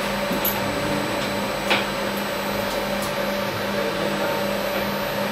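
Steady machine hum in a machine shop, with a single sharp knock about two seconds in as the steel vise is handled on the milling machine table.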